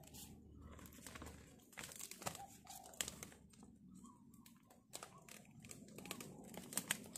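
Clear plastic sheeting crinkling faintly as it is pulled against a PVC pipe frame and fastened with plastic clips, with scattered light clicks.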